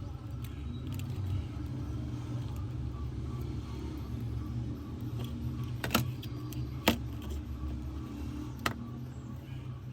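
A steady low rumble, with three sharp clicks about six seconds in, a second later, and again near the end.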